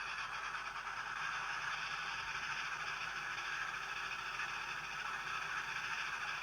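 Hornby A4 'Silver Link' model locomotive running flat out on a rolling road: the Hornby TTS sound decoder's fast steam chuffing, steady without distinct beats, mixed with the whir of the motor and rollers.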